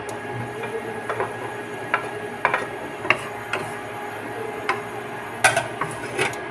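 Wooden spatula tapping and scraping against a non-stick frying pan while stirring minced garlic in a little olive oil: irregular clicks, the sharpest near the end, over a steady hiss.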